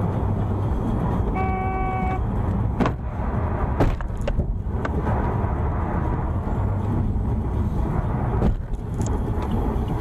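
Steady road and engine rumble heard from inside a car driving on a wet highway, with one short car-horn blast about one and a half seconds in and a few sharp clicks later on.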